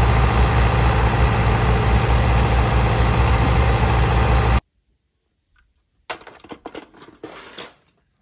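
Concrete mixer truck's diesel engine running steadily at idle, a loud low rumble that cuts off suddenly about four and a half seconds in. Near the end, toy trucks click and rattle as they are handled on a tabletop.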